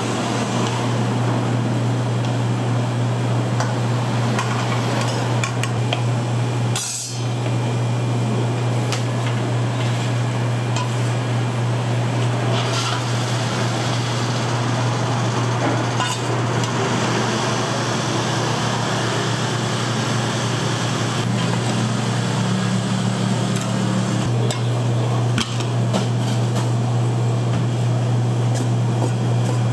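Food-stall kitchen work: occasional clinks of a metal ladle and strainer against steel pots, and knocks on a wooden chopping block, over a steady low hum and a constant noisy rush.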